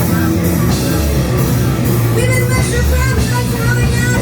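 Live punk rock band playing loudly: drums, bass and electric guitar in a dense, continuous wall of sound.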